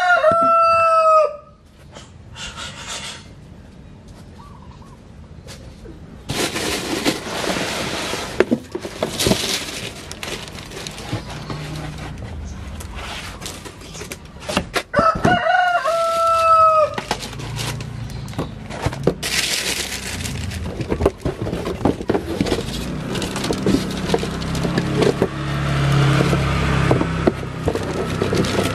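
A rooster crowing twice: a long held call that drops at the end, one finishing about a second and a half in and another about halfway through. From about six seconds on, a steady hiss with scattered clicks fills the gaps.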